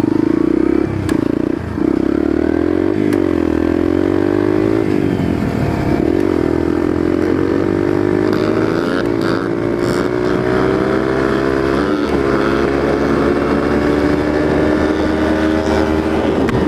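Yamaha TTR 125 dirt bike's single-cylinder four-stroke engine running while being ridden, its pitch climbing and dropping again and again with throttle and gear changes.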